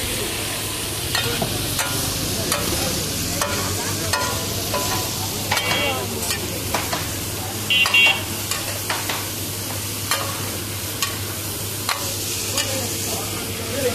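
Chicken pieces sizzling on a large flat iron griddle while a metal spatula scrapes and clanks against its surface, turning the meat. A steady sizzle runs under irregular sharp metal strokes, with a louder ringing clang about eight seconds in.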